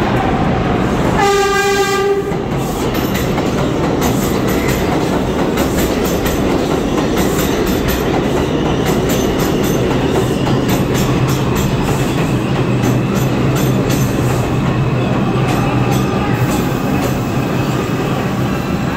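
New York City Subway express train giving a short horn blast about a second in, then running into the station alongside the platform with a loud, steady wheel-on-rail rumble and clattering clicks over the rail joints. A low steady hum comes in about halfway through.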